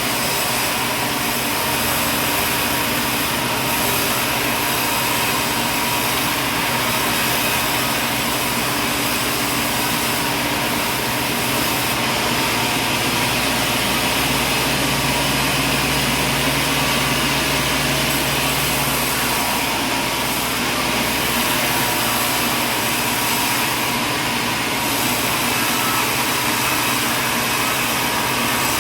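Steady machinery noise running evenly throughout, a mix of hiss and drone, with a low hum joining in for a few seconds around the middle.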